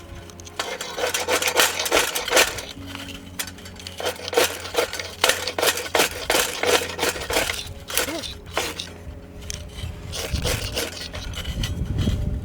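A ferrocerium fire-starter rod struck again and again with a metal scraper, a rapid run of short scraping strikes coming in clusters, to throw sparks onto tinder. Background music with steady held tones plays underneath.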